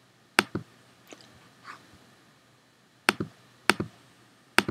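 Computer mouse clicks, sharp and in quick pairs: one pair about half a second in, then three more pairs close together in the last second and a half.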